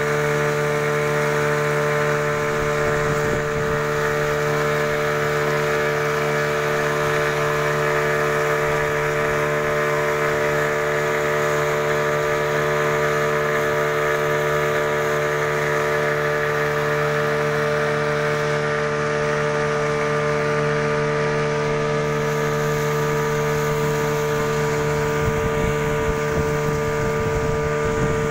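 A small river boat's outboard motor running steadily at cruising speed, its hum holding one even pitch, over the hiss of water and air passing the hull.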